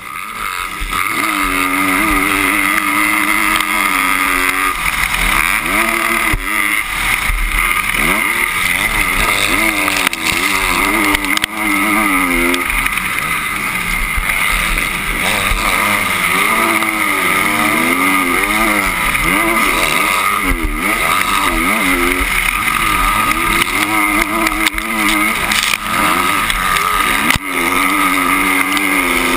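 Motocross bike engine, heard close up from on board, revving hard and falling off again over and over as the rider accelerates, shifts and brakes around the dirt track, over a steady rushing noise.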